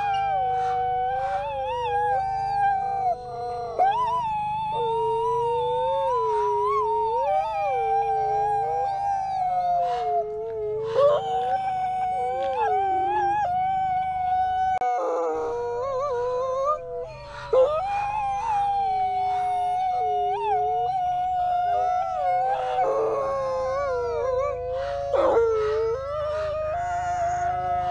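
Two Canadian/Rocky Mountain gray wolves howling together in a duet. One holds a fairly steady higher note while the other's lower howl rises and falls in repeated swoops beneath it.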